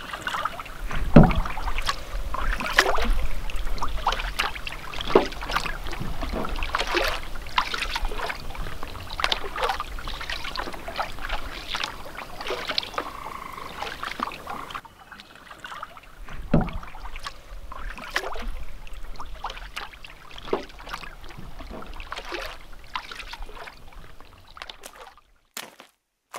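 Canoe being paddled on calm water: irregular paddle strokes and splashes in the water over a low rumble, with a heavy thump about a second in. Near the end the water sounds stop, leaving only a few short ticks.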